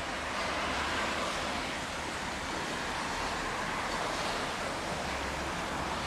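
Steady outdoor traffic noise: a continuous rumble and wash of passing vehicles, swelling gently now and then.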